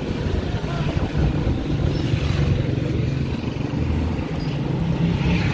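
Motorized tricycle's motorcycle engine running steadily as it drives along a street, heard from the passenger seat.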